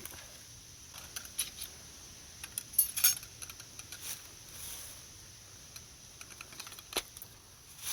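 Laptop keys clicking in short clusters as trail-camera pictures are paged through: scattered light clicks about a second in and around three seconds, and one sharper click near the end.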